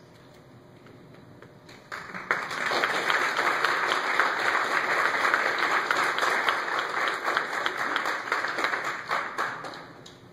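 Guests applauding the newlyweds' kiss, a crowd of clapping hands that starts about two seconds in and dies away near the end.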